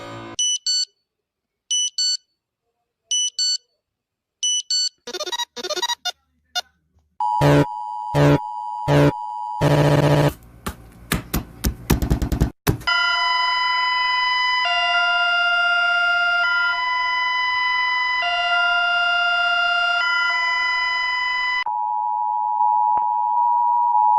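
A series of different emergency siren and alarm tones, one after another. First come short electronic beeps, then pulsed tones and fast beeping. From about 13 seconds a two-tone siren alternates between a high and a low note roughly every two seconds, and near the end a single steady tone sounds.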